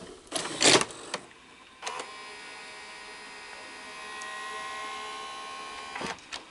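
Sony SLV-R5UC S-VHS VCR's tape-loading mechanism running after a replacement gear was fitted: a few clicks, then about two seconds in the loading motor starts and whirs steadily with a thin whine for about four seconds, followed by more clicks near the end. Something is still wrong with the mechanism.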